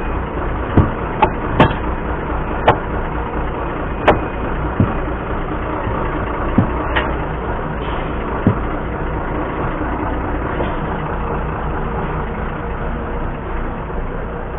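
Heavy truck diesel engine idling steadily, with a string of sharp knocks and clanks over the first nine seconds or so as tyres, timber blocks and a steel wheel rim are handled.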